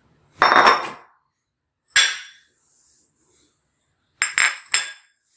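Kitchen utensils clinking and ringing: a longer clatter about half a second in, a single sharp clink at two seconds, and three quick clinks near the end.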